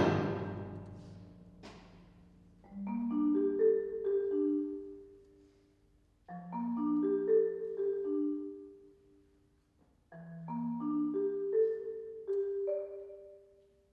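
Percussion ensemble music: a loud chord dies away at the start, then mallet percussion (marimba and vibraphone) plays three short phrases of struck notes that ring and fade, with silent pauses between them.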